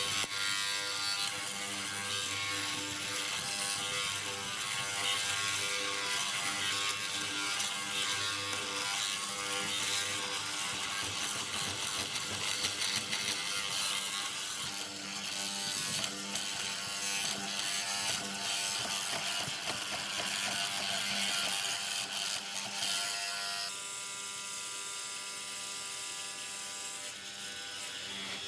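A machine running with a continuous mechanical rattle over a steady whine. The sound thins out a little near the end.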